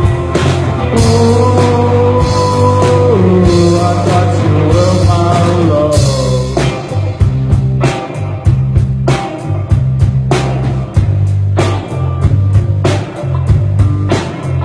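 Rock band playing live, with heavy bass and a held, bending melody line over the first half. A steady beat comes in about halfway through.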